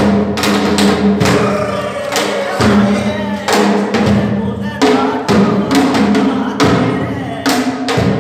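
A man singing a song, backed by drums beaten with sticks in a steady stream of strokes.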